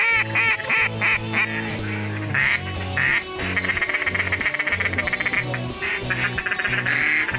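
Duck call blown by a hunter: a string of quacks, then a fast rolling chatter of short notes from about three and a half seconds in. Background music with steady held low notes runs underneath.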